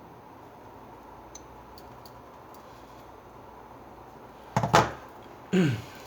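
Two short handling noises on the workbench near the end: a sharp clack with a quick rattle, then a brief creak that falls in pitch, over a faint steady hum.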